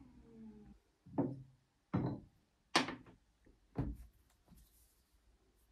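Four dull knocks, about a second apart, as objects are set down and moved on a hard desktop, among them a laptop.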